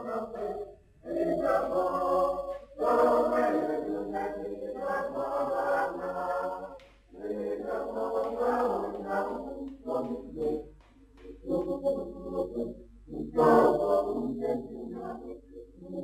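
A group of voices singing together without instruments, in phrases separated by short breaths.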